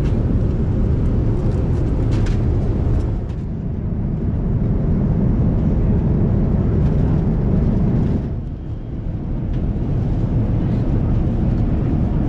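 Steady rumble of a Boeing 787-9 airliner's engines and airflow heard inside the cabin, dipping in level briefly twice.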